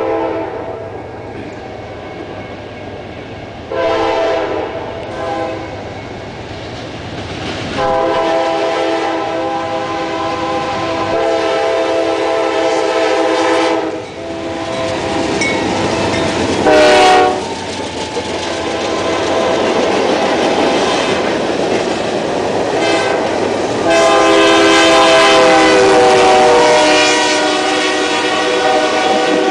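Diesel freight locomotive horn sounding several blasts in a long, long, short, long pattern, the grade-crossing signal. The short blast a little past halfway is the loudest. Between blasts there is the steady rumble of the freight train passing, and the last long blast comes as the locomotives go by close.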